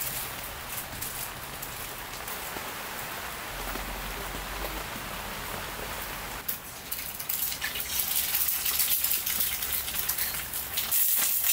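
Steady rain falling. About six and a half seconds in it changes to a louder, closer patter of individual drops.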